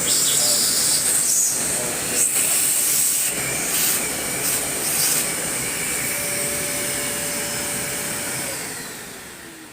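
Electric vacuum-blower running with a loud rush of air, surging as it is worked over the burner parts to clear carbon and dust, then switched off and winding down near the end.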